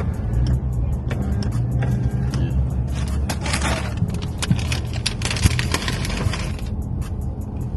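Inside a car: steady engine and road rumble with music playing, scattered small clicks, and two stretches of hiss in the middle.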